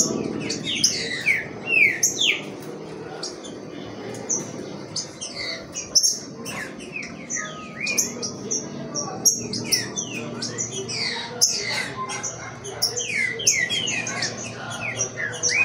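Caged green-winged saltators (trinca-ferro) calling: a dense run of quick, sliding chirps, several birds overlapping.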